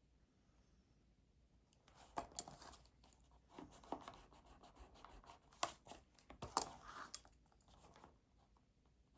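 Sheets of paper being handled: a run of crisp rustles and sharp snaps that starts about two seconds in and dies away near the end.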